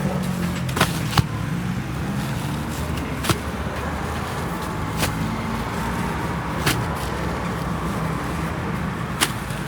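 Engine or motor running steadily with a low hum, with six sharp clicks or knocks at irregular intervals.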